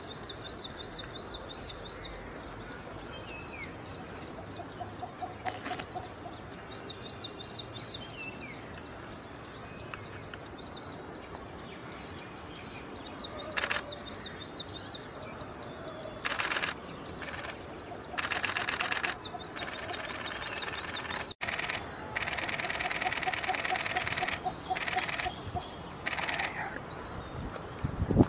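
Cinnamon bittern calling: a series of low, quickly repeated notes, given several times and more often in the second half. Fast high chirping runs through the first half over a steady high background tone, and loud bursts of rapid clicking break in several times from about halfway.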